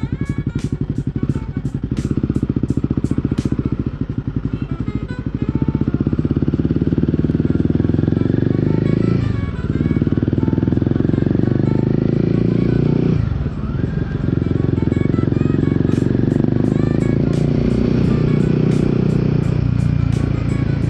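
Royal Enfield Guerrilla 450's single-cylinder engine and exhaust running under way, with two brief dips in engine sound near the middle as the revs drop and pick up again. A regular ticking, about three a second, runs over it at the start and again near the end.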